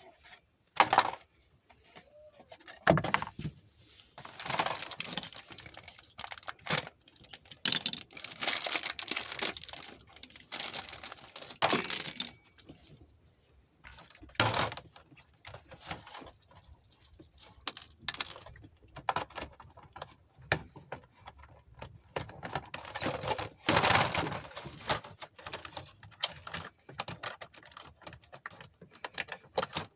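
Small plastic parts and packaging being handled: scattered clicks, taps and short rustling scrapes, unevenly spaced.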